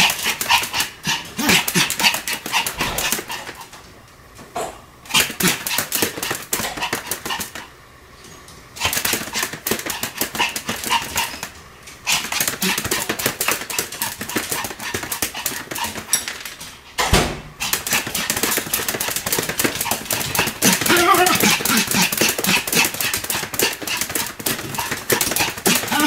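A Pomeranian barks in rapid, continuous volleys while spinning in fast circles. The barking pauses briefly about four and eight seconds in.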